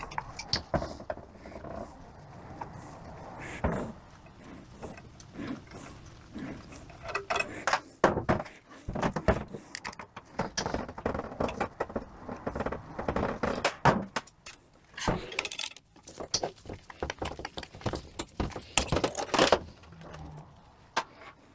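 Small metal parts and screws of a 42RE automatic transmission's valve body clinking and clattering as they are handled and taken apart by hand: irregular clicks and knocks, busier from about a third of the way in.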